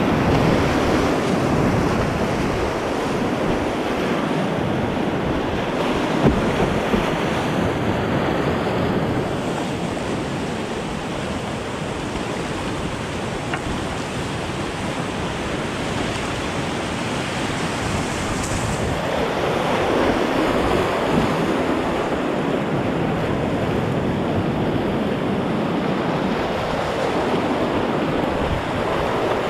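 Loud, steady rushing of whitewater rapids heard from a kayak in the middle of the rapid, with water spraying over the camera.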